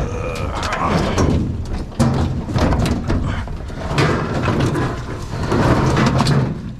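Knocks, bangs and scraping of a large metal appliance being lifted and slid onto a pickup truck's tailgate, with a couple of sharp impacts about two and four seconds in.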